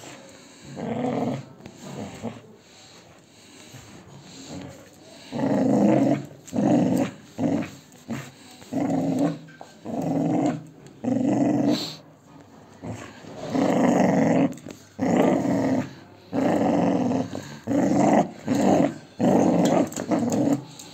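Chocolate Labrador play-growling while tugging on a rope toy: one growl about a second in, then from about five seconds in a string of short growls about one a second.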